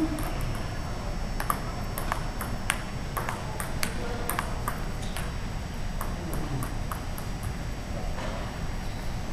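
Table tennis rally: the ball clicking sharply off the paddles and the table in a quick, steady back-and-forth, about two to three hits a second.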